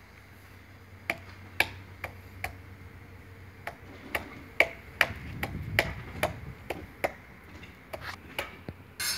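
Around twenty sharp, irregular taps and clicks of hard material on the marble relief tiles as they are adjusted and seated on the wall. A short burst of hiss comes in near the end.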